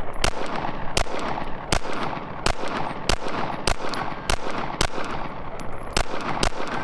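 Handgun shots fired in a steady string, roughly one every half to three-quarters of a second, each a sharp crack.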